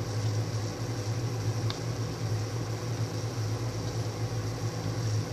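Steady low hum with an even hiss, with one faint click about two seconds in.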